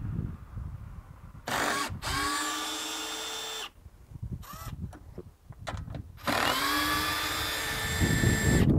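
Hilti cordless drill-driver with a socket bit backing out 10 mm screws: two runs of a motor whine, each about two seconds long and rising in pitch as the motor spins up. The first starts about a second and a half in and the second about six seconds in.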